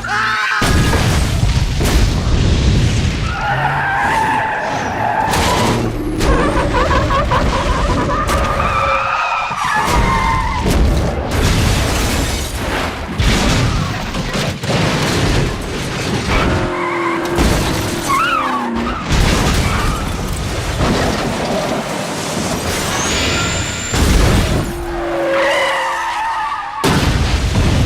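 Multi-car highway pile-up from a film soundtrack: one heavy crash impact and boom after another, with tyres skidding and glass shattering.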